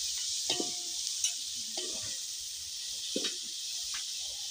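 Sliced onions sizzling in hot oil in a pan, with a steady hiss. A wooden spoon stirs them, scraping against the pan several times.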